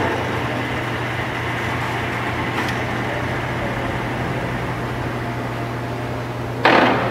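Sharp 21 x 120 engine lathe running under power, its geared headstock and drive giving a steady mechanical hum. There is a faint click about two and a half seconds in and a short, louder clatter near the end as the headstock levers are worked.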